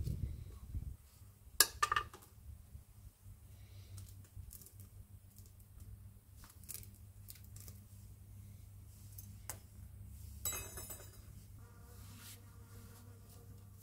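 Light metallic clicks and clinks of tools and bearing parts being handled on a bench, over a steady low hum. There is a sharp click about one and a half seconds in and a short rattle about ten seconds in.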